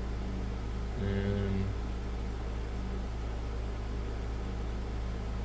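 Steady low electrical hum and hiss of room background noise, with a brief hummed "mm" from a man about a second in.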